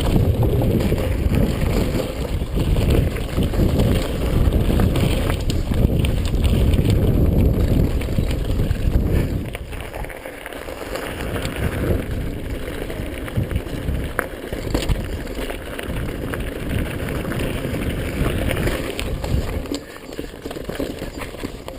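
Wind rumbling over the microphone, with the rattle and tyre noise of a mountain bike riding down a trail. It is louder for the first half and eases off about ten seconds in.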